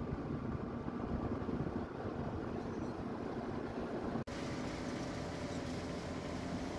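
Steady engine and road noise of an MSRTC state transport bus heard from inside while it drives, with a low hum running under it. The sound drops out for an instant about four seconds in, then carries on.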